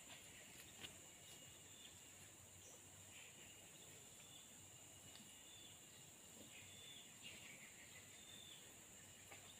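Near silence: a faint, steady high insect drone with a few soft chirps.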